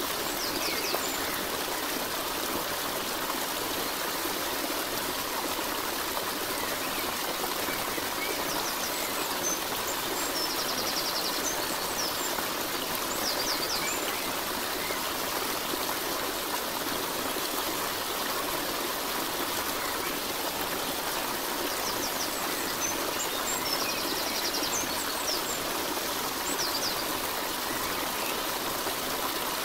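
Steady rushing of running water, like a stream, with a few short high-pitched sounds that come back at regular intervals, as in a looped ambience track.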